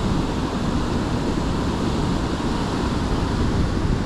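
Sea surf breaking steadily on the shore, an even rush of water, with wind on the microphone adding a low rumble.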